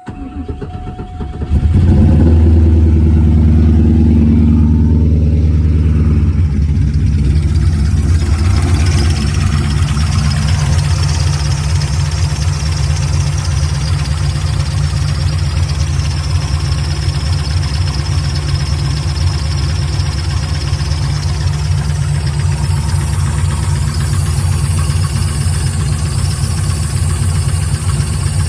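Engine cranked by the starter, catching about a second and a half in, then settling into a steady idle. It idles with the valvetrain noise that the owner calls excessive after a camshaft swap and is unsure is normal.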